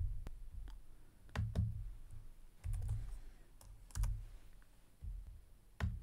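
Irregular clicks of a computer mouse and keyboard keys, about nine in all, several with a soft low thud beneath them, as a dimension value is entered on a computer.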